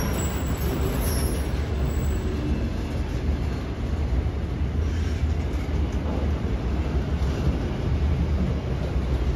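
Autorack freight cars of a Canadian Pacific train rolling past, a steady rumble of wheels on rail.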